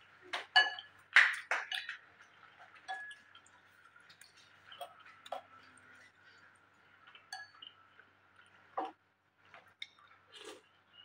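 A soup spoon clinking against a ceramic bowl of noodle soup: about nine light, separate taps, each with a brief ringing, the loudest about a second in. Near the end there is a soft sip of broth from the spoon.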